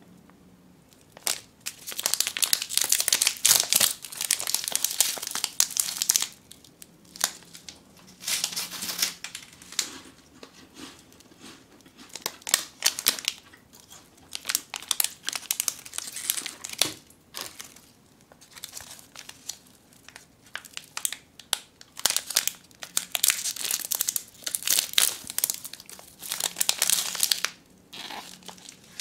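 Plastic snack wrappers crinkling and tearing as Umaibo and other dagashi packets are handled and torn open, in repeated bursts with short pauses between them.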